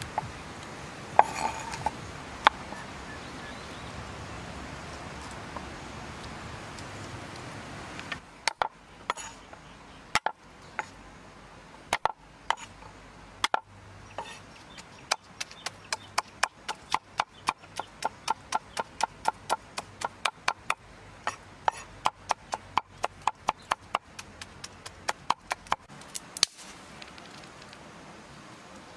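Kitchen knife chopping on a thick round wooden chopping board. A few scattered cuts come first. Then a long run of quick, even chops at about three a second as garlic cloves are chopped, stopping a few seconds before the end.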